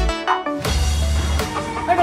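Electronic background music with a heavy bass beat, which cuts out briefly and returns; a voice comes in near the end.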